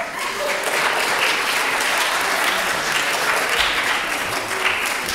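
Audience applauding: the clapping comes up at once and carries on steadily.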